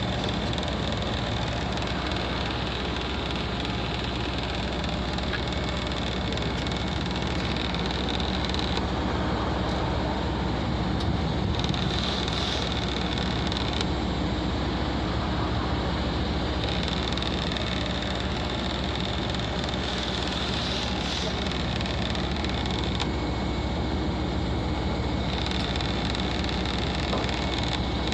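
Commercial air conditioner outdoor unit running with a steady low hum and fan noise, its casing rattling. A higher hiss near the top comes and goes several times.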